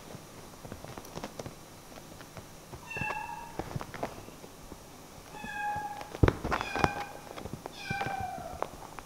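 Kittens playing: a kitten mews in short high-pitched calls about four times in the second half, the last one falling slightly, amid soft scuffling and knocks as they tumble on a sofa. A sharp thump a little past the middle is the loudest sound.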